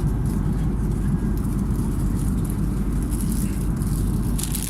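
Steady low rumble inside an Airbus A330-300 passenger cabin, with light rattling and clicking of cabin fittings.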